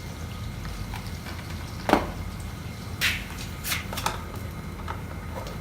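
A few sharp clicks and knocks of tools and screws being handled while motorcycle fairing fasteners are undone. The loudest knock comes about two seconds in, and smaller clicks follow over the next two seconds, over a steady low hum.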